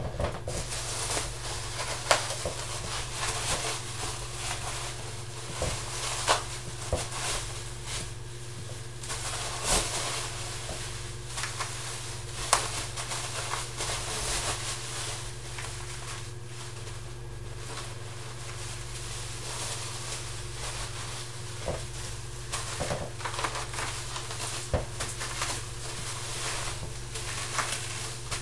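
Plastic wrapping rustling and crinkling as it is pulled off an item, with many scattered sharp crackles, over a steady low hum.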